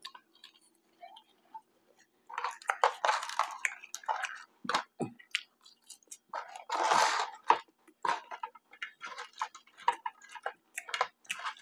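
Close-miked chewing of McDonald's French fries: a run of wet mouth clicks and smacks, with a one-second rush of noise about two-thirds of the way through.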